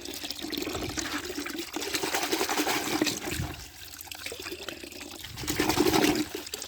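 A stream of running water pouring and splashing over a small toy car as it is washed, swelling briefly near the end.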